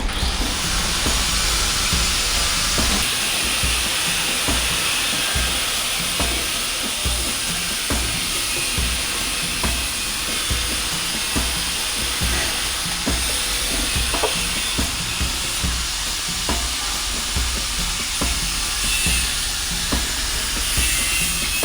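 Steady loud hiss of rushing air or spray, with a weaker regular pulsing underneath.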